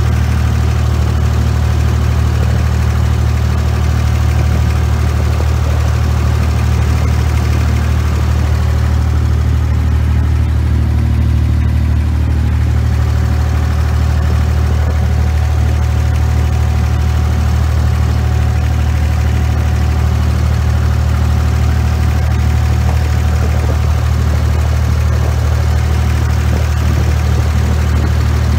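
A passenger boat's engine running steadily, heard on board: a loud, even, deep drone.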